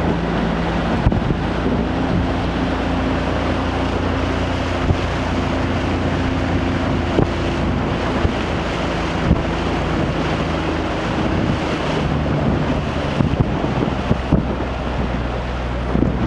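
Small fishing boat's engine running under way: a steady low hum whose pitch shifts slightly a few times. Strong wind noise on the microphone and water rushing past the hull cover it, with a few short knocks.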